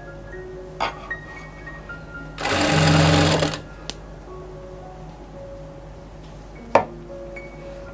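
Industrial single-needle sewing machine stitching a short run of about a second, a little over two seconds in. Two sharp clicks, one near the start and one near the end.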